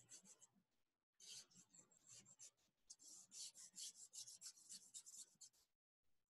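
Faint, rapid sketching: a drawing tool scratching across paper in quick short strokes, with a short pause about a second in.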